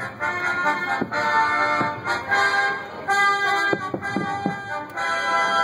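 Military brass band playing a march, with held brass chords and short percussive strikes.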